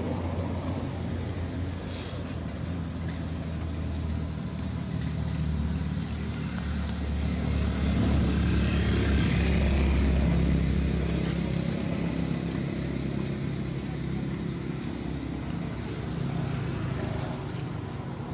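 A motor engine drones steadily, growing louder to its peak about ten seconds in and then fading again.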